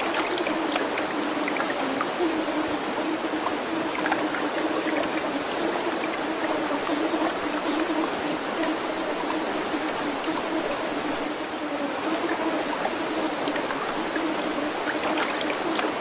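Steady sound of running water, like a stream, with a faint low tone wavering underneath.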